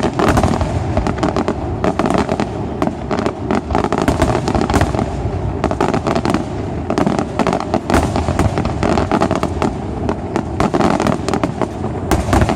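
Aerial fireworks display in a dense barrage: many bangs and crackles a second, with a cluster of louder reports near the end.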